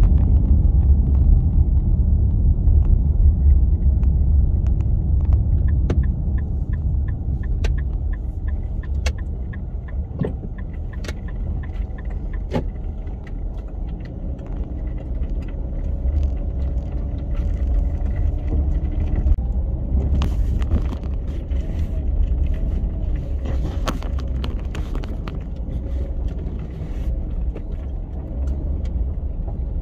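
Sedan driving slowly along a narrow rutted track, heard from inside the cabin: a steady low road rumble with scattered clicks and knocks from the rough surface, turning rougher and noisier about two-thirds of the way through.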